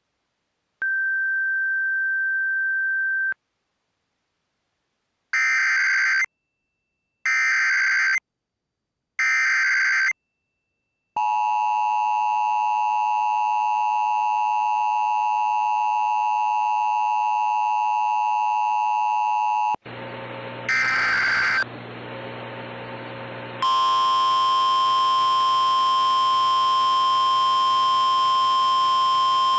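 Emergency Alert System tones for a severe thunderstorm warning: a steady beep, then three one-second bursts of SAME header data a second apart, then the two-tone attention signal held for about eight seconds. After a short noisy stretch with one more data burst, a loud steady single tone starts about six seconds before the end and keeps going.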